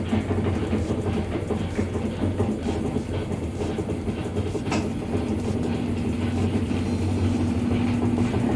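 Washing machine in its spin cycle: a steady hum with a light, rhythmic knocking from the tub, and one sharp click about halfway through. The knock is the sign of a worn, sagging suspension rod letting the tub sit unevenly.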